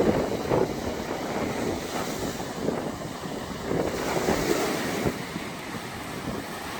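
Sea waves washing onto the beach in a steady surf, with wind buffeting the microphone.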